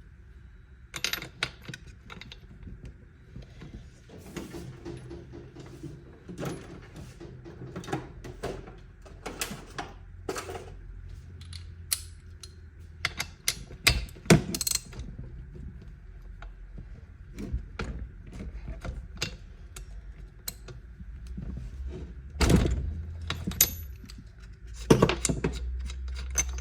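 Irregular clicks, clunks and rattles of hand tools and chainsaw parts being handled while the spark plug is removed from a Ryobi chainsaw.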